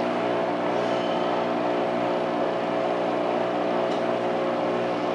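Steady mechanical hum made of several held low tones, even throughout, with a faint click about four seconds in.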